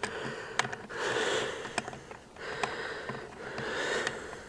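A person breathing audibly near the microphone, four breaths about a second apart, with a few small clicks of handling.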